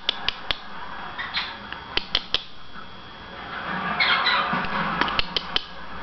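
An Amazon parrot gives a rough, chattering call lasting about a second, starting a little before four seconds in. Around it are sharp clicks in quick groups of three: one at the start, one about two seconds in and one near the end.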